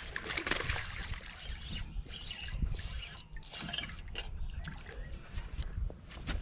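Water lapping and trickling against a bass boat's hull, with gusts of wind rumbling on the microphone.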